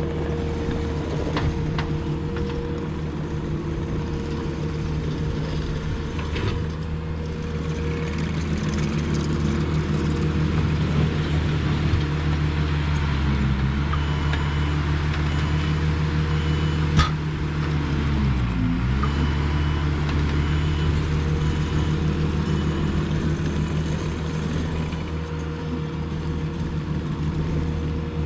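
Case TR310 compact track loader's diesel engine running steadily while spreading rock, its pitch sagging briefly under load twice, about halfway through and again a few seconds later. A faint intermittent beeping comes in around the middle, and there is one sharp click about two-thirds of the way in.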